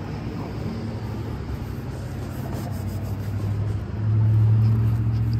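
A steady low engine hum, stepping up louder about four seconds in.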